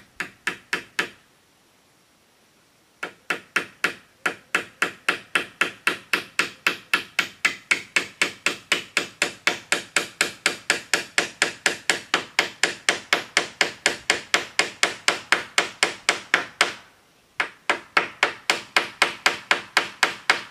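A hammer striking a bamboo roof in quick, even blows, about three or four a second. There is a two-second pause about a second in and a brief one near the end.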